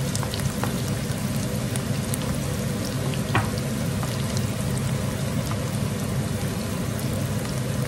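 Chopped onions frying in sunflower oil in a wok, a steady sizzle as they turn glassy, with a few light clicks of a spatula stirring them over a steady low hum.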